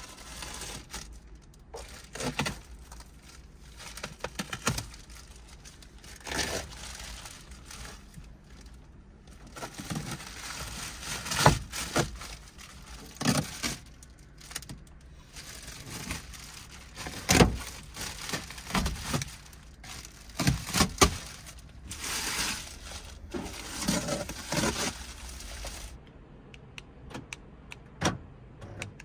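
Rustling and irregular knocks and bumps of a person shifting around in a cramped car, the loudest knocks about a third of the way in and again a little past halfway.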